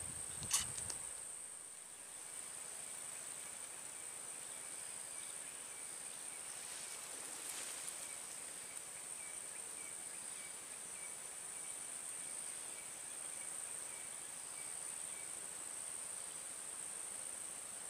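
Insects droning steadily at a high pitch, with a faint run of soft ticks beneath them. A single sharp click comes about half a second in.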